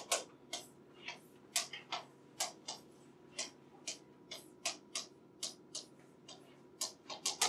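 Chalk striking and scraping on a blackboard as symbols are written: a string of short, sharp clicks at irregular intervals, about two or three a second, with a quick run of them near the end, over a faint steady room hum.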